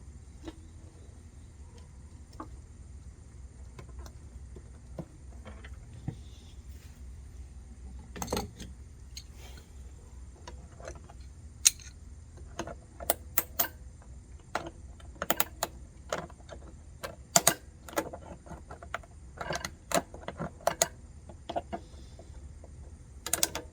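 Irregular light clicks and taps of small plastic and metal mower carburetor parts and the fuel line being handled and fitted, coming in quick clusters in the second half, over a low steady hum.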